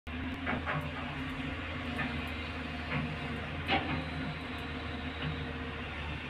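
Heavy diesel engine of a JCB tracked excavator running steadily as it digs sand, with several short metallic clanks and knocks from the bucket and machine, the loudest about three and three-quarter seconds in.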